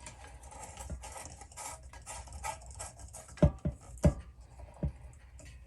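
Scraping and rubbing of hands working at a ceiling light fixture, with four short dull knocks about three and a half to five seconds in.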